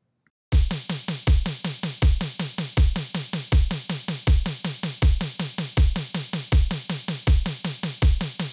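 Programmed electronic drum beat from Logic Pro X's Analog Circuits kit: kick, snare and a fast steady hi-hat looped at 160 bpm to imitate a train's wheels clacking over the rail joints. It starts about half a second in, with a kick landing about every three quarters of a second under the even hi-hat clicks.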